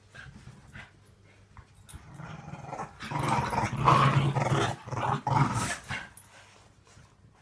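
Two small terriers play-fighting, with low rasping growls that build up, are loudest from about three to six seconds in, then die away.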